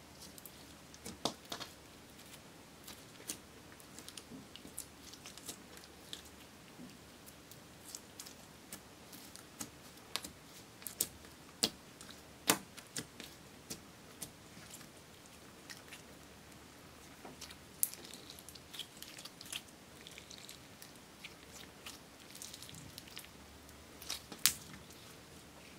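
Clear slime being kneaded, squeezed and stretched by hand, making irregular sticky clicks and pops as it is worked.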